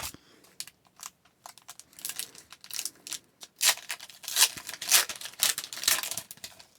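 A hockey card pack wrapper being torn open and crinkled by hand, a string of crackling rustles that gets louder about halfway through.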